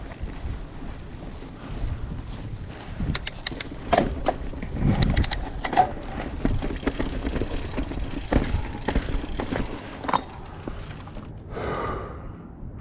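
Mountain bike riding down a rocky trail: tyres rolling over rock, with frequent sharp knocks and rattles from the bike.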